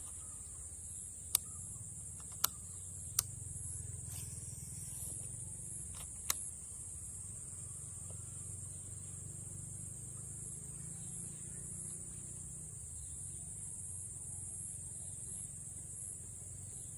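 Steady high-pitched insect chorus, with five sharp clicks in the first six or so seconds.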